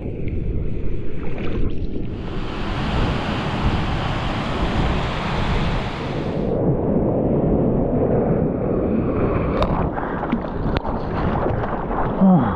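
Ocean surf breaking, with wind buffeting the microphone as a constant low rumble. A louder rush of water lasts about four seconds near the start, and crackling splashes come later.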